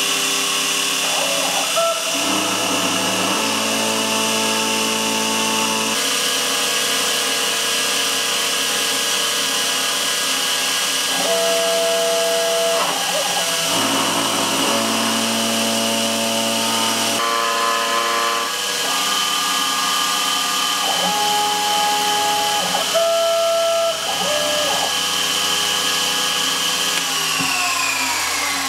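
CNC milling machine cutting a pocket into a brass block with an end mill: a steady high spindle whine over lower tones that shift every few seconds as the axis motors move. Near the end the whine falls in pitch as the spindle winds down.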